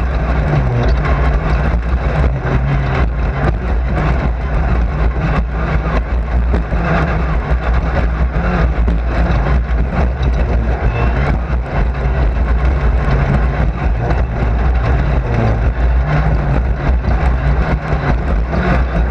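Race car heard from inside the cockpit at speed: the engine runs hard under a heavy, steady low rumble, its note shifting up and down slightly, with frequent knocks and rattles throughout.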